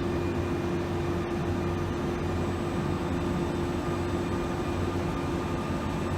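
Waldrich Coburg PMC 3000 portal milling machine running under power: a steady machine hum with one constant mid-pitched tone over a low drone.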